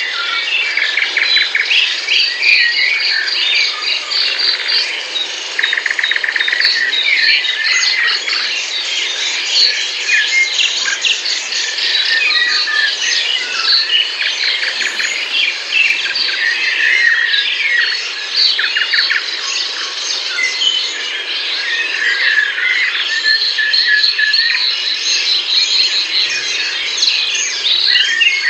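A dense chorus of many songbirds chirping and singing at once, calls overlapping continuously.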